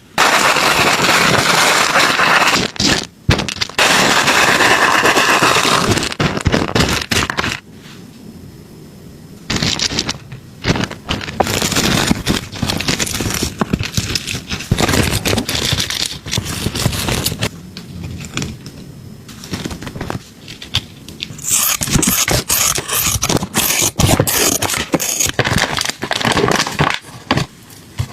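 Kitchen food-preparation sounds: irregular scraping and clattering, with a few stretches of dense, steady hiss.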